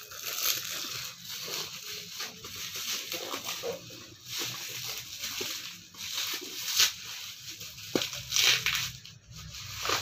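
Plastic bag and bubble-wrap packaging crinkling and rustling as it is handled and pulled open, with irregular crackles throughout.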